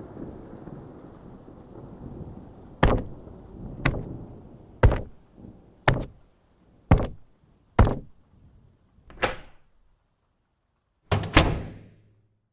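Rain and storm noise fade out. Then come heavy bangs, about one a second, seven in a row, like pounding on a door. After a short silence there are two final, louder bangs close together, the last one ringing on.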